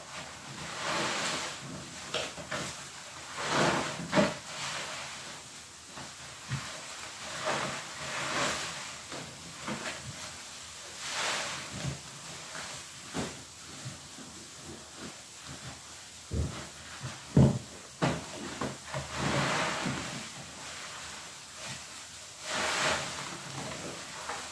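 Foam-soaked sponges squeezed and kneaded by hand in thick soap suds: repeated wet squelches and hissing, crackling foam every few seconds, with a couple of sharper wet smacks about two thirds of the way through.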